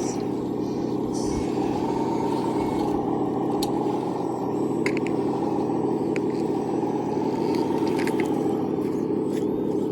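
Radio-controlled construction machine model working: a steady mechanical whir whose pitch slowly rises and falls, with scattered small clicks.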